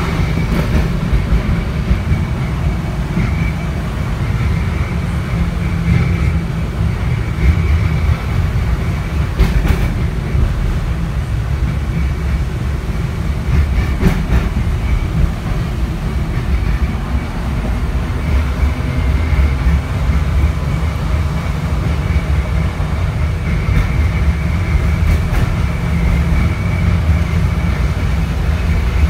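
LM-68M3 tram running along its track, heard from inside the passenger saloon: a steady rumble of wheels and motors with a faint high whine over it. A few sharp clicks come through, about ten seconds in, again near fourteen seconds, and near the end.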